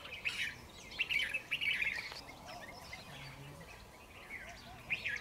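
Several birds chirping in many short, quick calls, with a softer, lower note repeating in the background.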